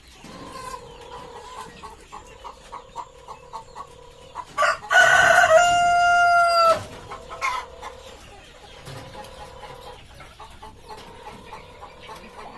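Ayam kampung (Indonesian native chickens) clucking, with a rooster crowing once loudly about five seconds in; the crow lasts about two seconds and ends on a long held note.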